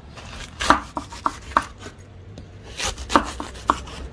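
Serrated knife sawing into a watermelon on a wooden cutting board, with a series of sharp crackles as the rind and flesh split.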